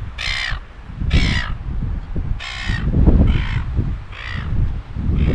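Seagulls calling: a series of about six harsh squawks, roughly one a second, over wind rumbling on the microphone.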